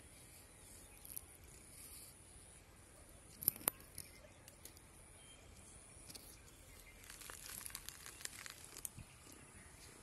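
Cat's claws scratching and gripping tree bark as it climbs: faint scratchy crackling, thickest in the second half, with two sharp clicks a little after three seconds in.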